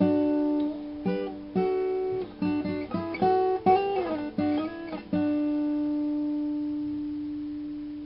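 Solo guitar music: a short phrase of plucked notes, ending about five seconds in on one long ringing note that slowly fades.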